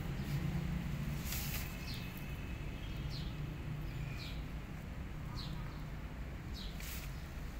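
Small birds chirping: about four short, high notes, each falling quickly in pitch, a second or two apart. They sit over a steady low rumble, with a couple of brief rustles.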